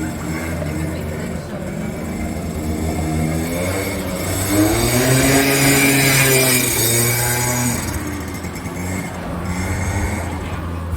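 A motor engine passing close, its pitch and loudness rising to a peak in the middle and then falling away, over a steady low hum.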